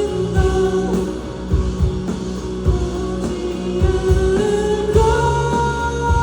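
Live pop-rock song: a singer holding long notes over a band with a steady drum beat.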